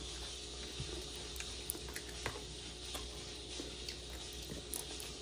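Faint sounds of people eating egg rolls: scattered small clicks and wet mouth noises of chewing, over a steady low hum.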